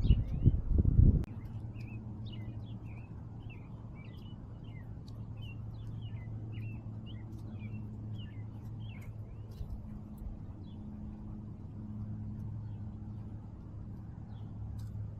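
Small birds chirping rapidly and busily for about ten seconds, then thinning out, over a steady low hum. A loud low rumble fills the first second.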